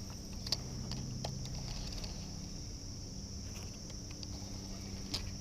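Steady high-pitched drone of insects from the riverbank, with a few sharp clicks, about half a second in, a second later and near the end.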